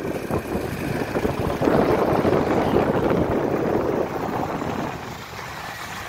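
A heavy engine running with a rough rumble. It grows louder about two seconds in and eases off near the end.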